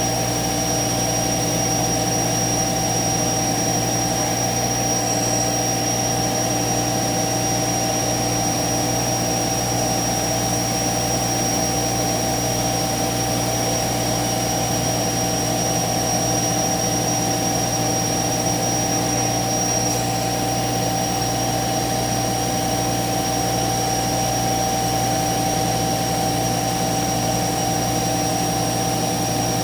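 CNC router running steadily: a constant high-pitched spindle whine over an even machine hum, unchanging throughout.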